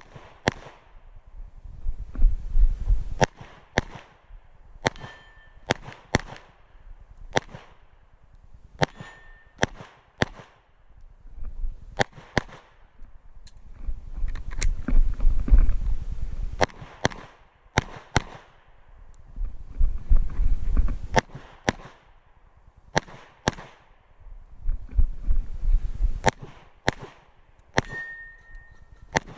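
Glock 47 9 mm pistol firing strings of sharp shots in quick succession, with short pauses between strings. A low rumble fills the gaps, and a brief high ring comes near the end.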